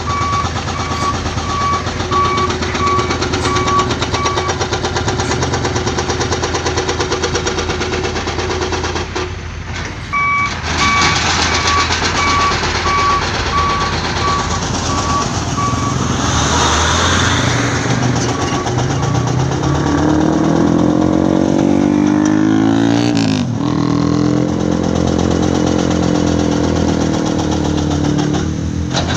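Reversing alarm of a heavy truck beeping repeatedly over a steady diesel engine rumble. The beeping stops and resumes, a burst of hiss comes about halfway through, and the engine then revs up and down.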